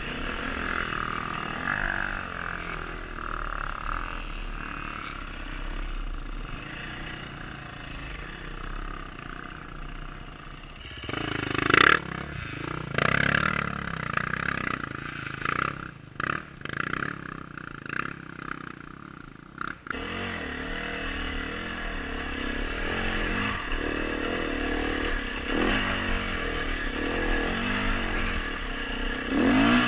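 Dirt bike engine revving up and easing off over and over as it climbs a rocky trail, with the clatter of the bike over stones and a loud knock about twelve seconds in.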